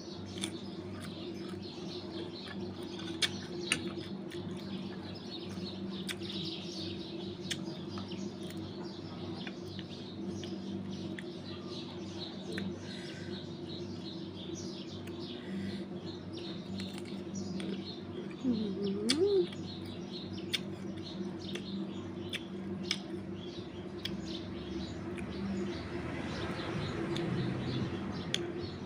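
Scattered sharp clicks and crackles of small sour tamarind pods being cracked, peeled and chewed, over a steady low hum. A short wavering call sounds about two-thirds of the way in.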